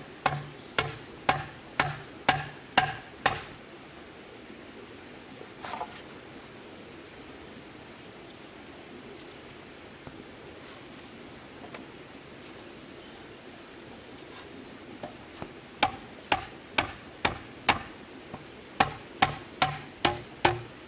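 Hammer blows, about two a second, in two runs: about seven at the start and about ten near the end, with a long pause between. Insects chirp faintly throughout.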